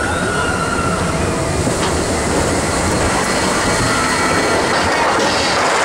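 Expedition Everest roller coaster train rolling along its track: a steady rumble and rattle with a faint wheel whine early on, growing louder and hissier near the end.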